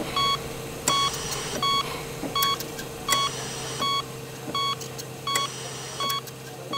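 Digital alarm clock beeping: short, high electronic beeps repeating in an uneven run of about two a second, with a few sharp clicks, over a steady low hum.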